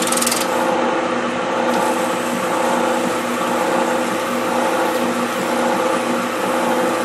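Lathe running steadily with a motor hum while sandpaper is pressed against an epoxy-coated 3D-printed plastic ear cap spinning on a sanding arbor, giving a continuous rasp.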